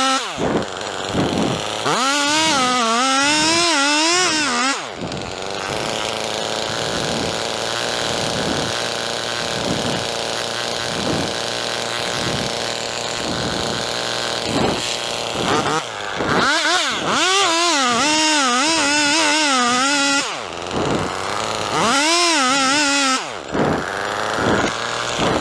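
Two-stroke chainsaw making felling cuts in a pine trunk, revving high in several long bursts under load and dropping back to a lower, pulsing run for about ten seconds between them.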